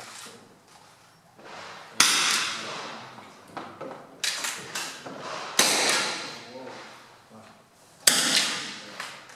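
Three sharp .22 rimfire rifle shots, two to three seconds apart, each echoing and dying away over about a second, with fainter cracks and clicks between them. These are smallbore match rifles firing .22 LR target ammunition such as RWS R50.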